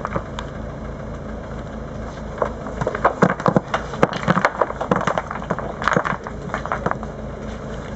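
Stones clattering and knocking against each other as they are tossed by hand off a loaded trailer onto the ground, many sharp impacts in quick succession, over the steady idle of a small tractor's engine.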